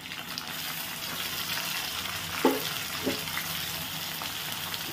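Chopped tomato and onions frying in hot mustard oil in a kadai, a steady sizzling hiss. Two light knocks come about halfway through.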